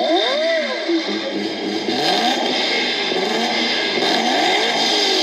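Car engine revving, its pitch rising and falling about half a second in, then weaker rises and falls over a steady hiss.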